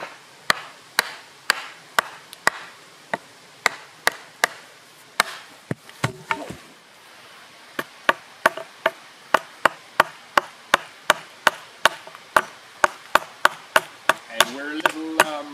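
Hatchet chopping down the side of an upright wooden post, sharp chops of steel into wood about two a second, quickening to about three a second midway.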